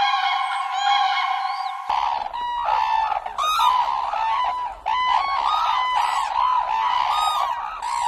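Common cranes calling for about the first two seconds, then a group of red-crowned cranes calling together with heads thrown back, many loud, arching calls overlapping one another.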